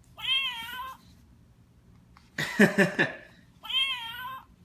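Recorded cat meow played by the small sound chip in the Exploding Kittens game box: two identical meows about three and a half seconds apart, each rising then falling in pitch, with a short, louder rough sound between them.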